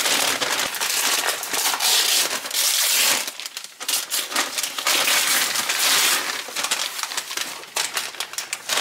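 Brown kraft packing paper crinkling and tearing as it is pulled open by hand, with a short lull about three seconds in.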